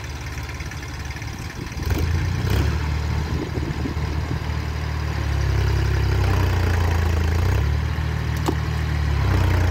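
Iseki TS2510 tractor's diesel engine revving hard under load. It gets louder about two seconds in and again around the middle, as the cage-wheeled tractor strains to climb a slippery, muddy ditch bank.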